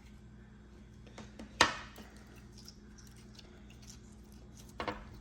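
Handling noises from slime-making supplies: a few light clicks and taps, with one sharp knock about one and a half seconds in and a couple more small knocks near the end, over a faint steady hum.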